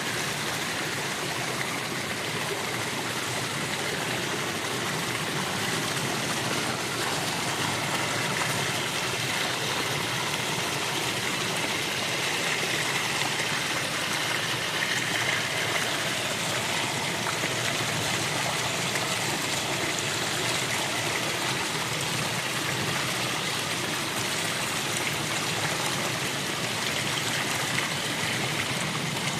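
A small stream flowing and trickling over stones, a steady continuous babble of water.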